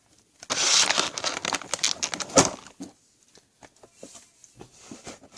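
Plastic packaging of a bag of squishy play sand crinkling and rustling as it is handled, loudest for the first couple of seconds, then a few scattered crackles.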